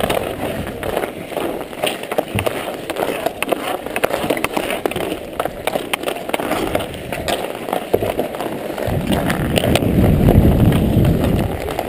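Ice skate blades scraping and gliding on rink ice, with the hockey stick blade tapping the puck in many quick, irregular clicks during stickhandling. About nine seconds in, a louder low rumble builds for a couple of seconds while the puck is lifted.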